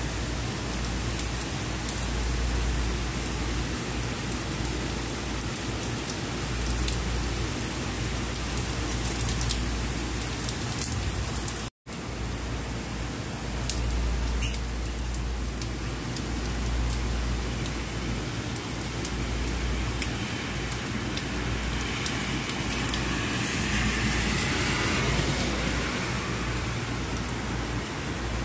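Steady rain falling on a street and buildings: an even hiss with a low rumble underneath. The sound cuts out for an instant about twelve seconds in, a sharp click follows a couple of seconds later, and the hiss swells near the end.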